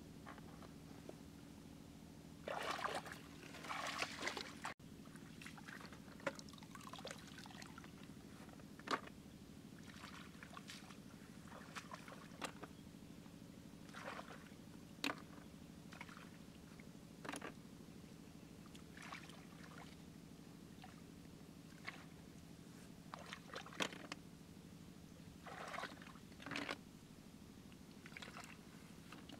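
Hands splashing and sloshing in shallow muddy paddy water while groping for snails, in a burst about three seconds in and then in short, scattered splashes. Sharp single knocks are scattered among them, over a steady low hum.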